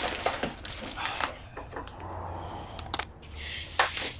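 Scattered light clicks and rustling handling noises over a faint low hum.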